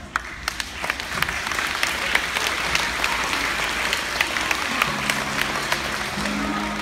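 Audience applauding: the clapping builds over the first second and then holds steady. About five seconds in, held low musical notes start under it.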